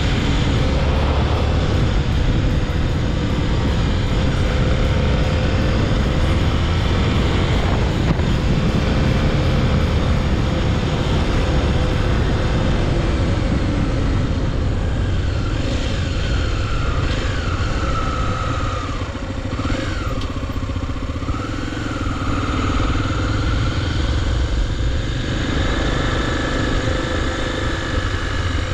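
Honda XR250 Tornado's 250 cc single-cylinder engine running at road speed under a heavy, steady rush of wind. In the second half its note wavers up and down now and then.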